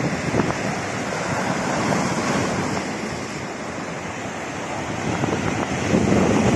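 Rough sea waves washing and breaking against shoreline rocks, with wind buffeting the microphone. The surf gets louder in the last second or so as a wave breaks close by.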